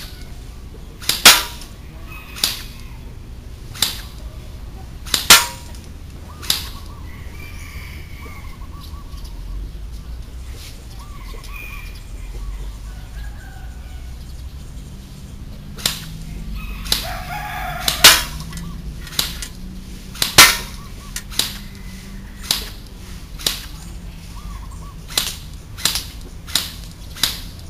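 JingGong MAC-10 electric airsoft gun firing single shots: about two dozen sharp cracks at uneven intervals, with a pause of about ten seconds in the middle.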